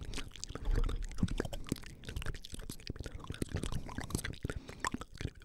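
Close-miked ASMR mouth sounds: many quick wet clicks and soft, unintelligible whispering right at the microphone, with a low thump about a second in.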